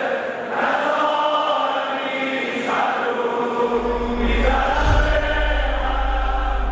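Intro music of choir-like voices singing long held notes, with a deep low hum coming in about halfway through.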